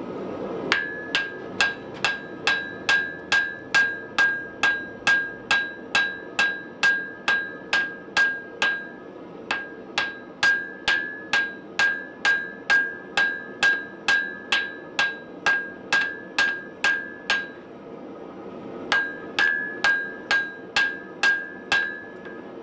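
Blacksmith's hand hammer striking hot steel on an anvil in a steady rhythm of about two blows a second, each blow ringing with a clear metallic tone. The hammering pauses briefly in the latter part, then resumes, over a steady rushing background.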